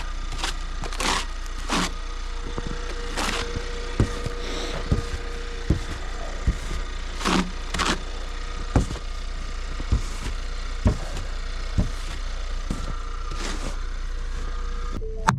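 Pickup truck engine running steadily, with sharp clicks or knocks about once a second and several brief scraping sounds over it.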